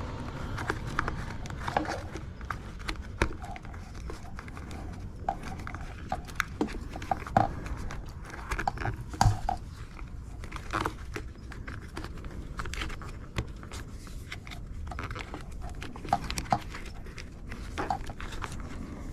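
Small irregular clicks, taps and knocks of plastic steering-wheel parts being handled and fitted together by hand.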